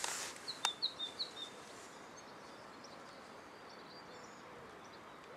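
A small songbird singing a short phrase of four quick high chirps in the first second and a half, with fainter scattered chirps after, over faint outdoor background noise. A single sharp click comes about half a second in.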